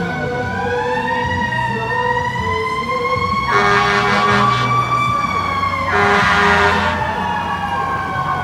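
Fire truck siren wailing, slowly rising in pitch and then easing back down. Two loud horn blasts, each about a second long, sound over it about halfway through.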